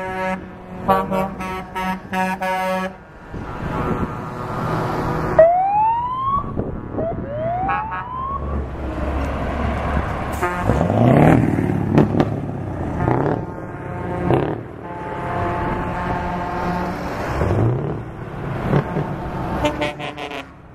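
A convoy of big trucks drives past: an air horn sounds in a series of short blasts, then two rising siren whoops, then the diesel engines run past one after another, their pitch rising and falling.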